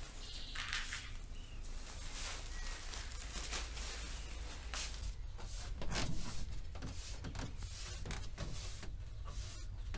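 Two cats eating dry kibble from a plastic bowl: small crunches and clicks over a low steady hum. Near the end a broom sweeps a wooden floor.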